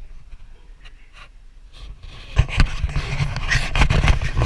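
Close, irregular rustling and puffs of noise against the camera's microphone, with low thumps. It gets much louder about two seconds in.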